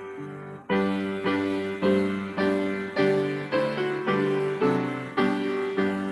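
Piano playing steady block chords, about two a second, after a brief pause near the start.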